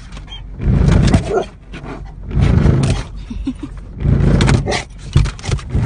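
A dog growling and barking in repeated loud bursts, about one every second or so, as it lunges at the moving windshield wipers.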